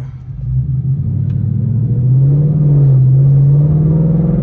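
Ford Mustang GT's 5.0-litre V8 accelerating away from a stop, heard from inside the cabin. The engine note swells about half a second in and climbs in pitch as the car picks up speed.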